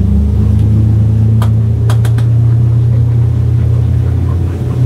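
Mercury 150 Pro XS outboard motor running hard under full throttle as the boat comes up onto plane almost at once, a steady loud engine drone. A few short sharp knocks sound around one and a half to two seconds in.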